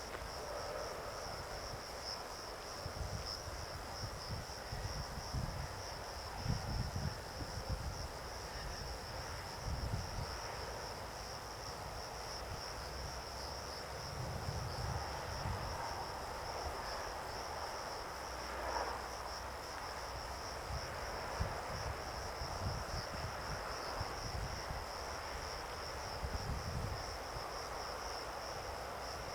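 Insects chirping in a steady, high, finely pulsing trill, with irregular low rumbling underneath.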